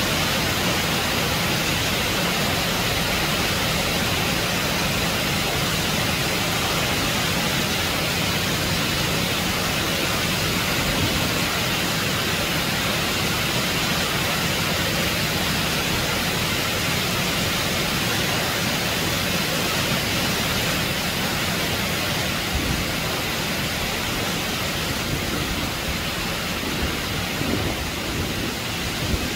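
Acquafraggia waterfall: water falling down the rock face and crashing into spray, a steady rush of falling water that eases a little near the end.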